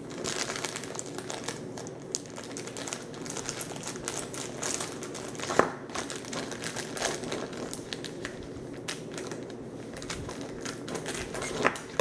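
Thin clear plastic bag crinkling and rustling as hands work a small toy figure out of it, with a few sharper crackles.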